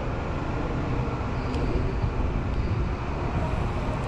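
Steady low rumble and hum of a passenger train standing idling at a station platform.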